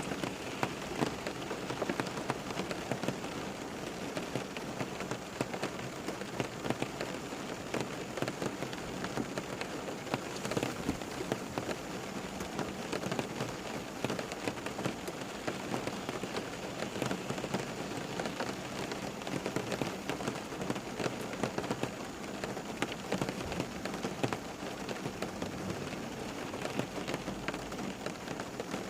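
Steady rain falling on a surface, a dense, even hiss of countless small drop ticks.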